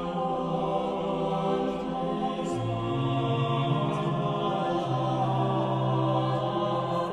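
Background music of slow, long held chords, with a new low bass note coming in about two and a half seconds in.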